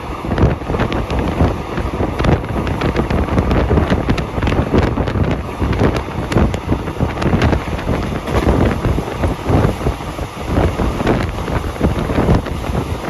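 Heavy wind buffeting the microphone, an irregular gusty rumble with constant flutters.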